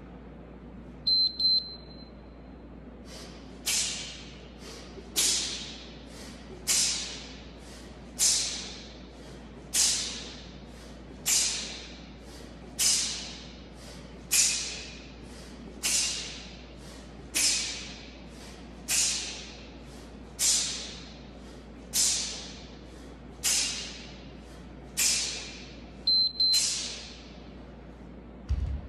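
Short electronic interval-timer beep about a second in and again near the end, about 25 seconds apart, marking a work interval. Between them, a person doing one-arm kettlebell swings breathes out in a sharp hiss on each swing, about one every second and a half, each with a softer breath just before it.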